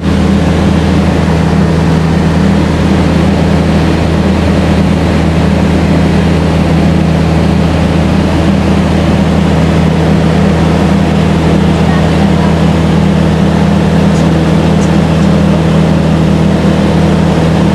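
Light aircraft's piston engine and propeller droning steadily in cruise, heard inside the cabin as a loud, even hum.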